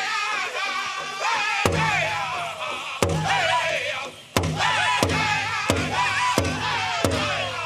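Powwow drum group singing high-pitched phrases that fall in pitch, over a big powwow drum struck in heavy beats. The beats are sparse at first, then come about every two-thirds of a second, with a brief break a little past halfway.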